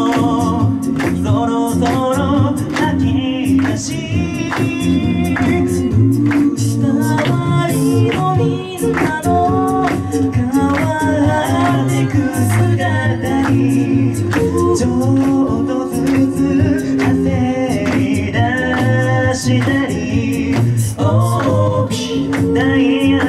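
Five-voice a cappella group singing live through a PA: lead and harmony voices over a sung bass line, with vocal percussion keeping a steady beat.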